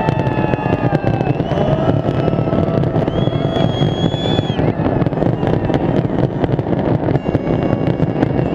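Fireworks going off in a continuous barrage of cracks and bangs over a large crowd cheering and shouting, with a few long high whistles.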